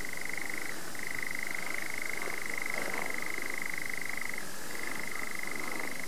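Male European nightjar churring: a long, fast, steady trill that breaks off briefly and dips slightly in pitch about a second in and again after about four seconds.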